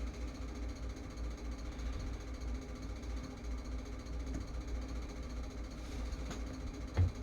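A steady low rumble that flutters unevenly, with a short soft knock near the end.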